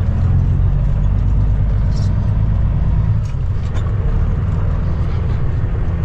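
The Cummins ISX inline-six diesel of a 2008 Kenworth W900L pulling away at low speed, a steady low rumble heard from inside the cab, with a few light clicks and rattles over it.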